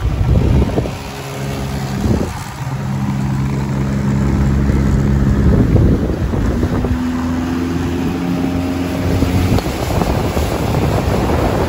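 Motorboat engine running under wind buffeting the microphone. Its steady hum shifts pitch a few times, rising about six and a half seconds in as the throttle changes.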